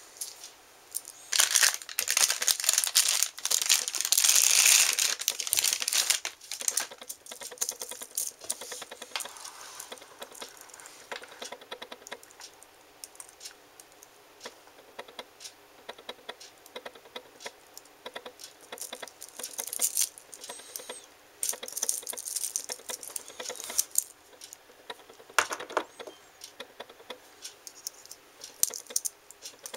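Clear plastic packaging bag crinkling and tearing open, loudest for a few seconds starting shortly in. Then a long run of small clicks and light rattles as a metal-cased wristwatch and its metal link bracelet are handled.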